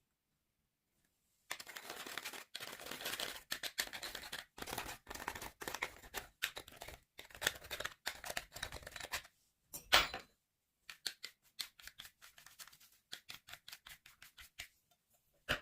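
Slime being mixed and squished by hand, with sticky crackling and popping. A loud squelch comes about ten seconds in, followed by a run of separate pops about four or five a second.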